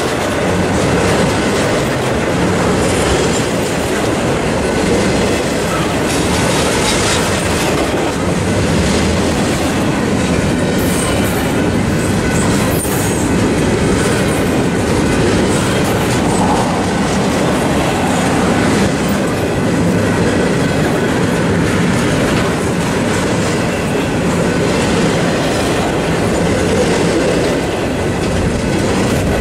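Freight train of empty intermodal well cars rolling past close by: a steady rumble and clatter of steel wheels on the rails.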